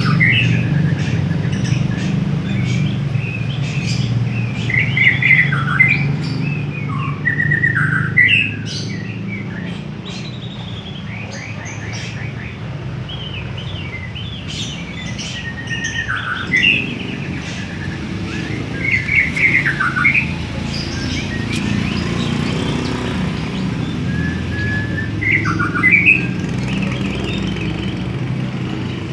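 A murai songbird singing in bursts of varied whistles and quick trills, with pauses between phrases, over a steady low hum.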